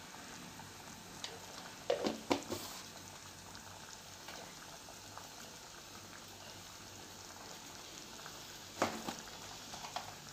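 Thick masala gravy simmering in a steel kadai: a steady, quiet bubbling hiss. A few brief louder sounds come through it, two about two seconds in and two near the end.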